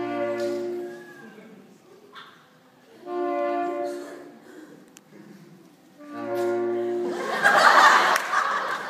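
Saxophone ensemble playing three short held chords, each about a second long and about three seconds apart, with a loud burst of audience noise near the end.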